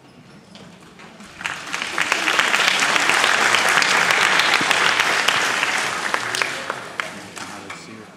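Audience applauding: the clapping builds over about a second, holds for a few seconds, then dies away near the end.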